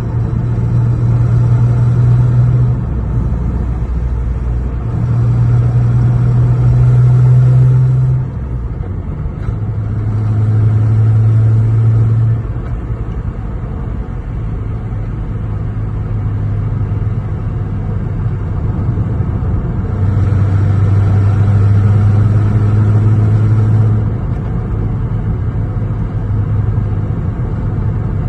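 Lexus GS 300's straight-six engine running under way, a steady low drone that swells under throttle and eases off several times as the car is driven.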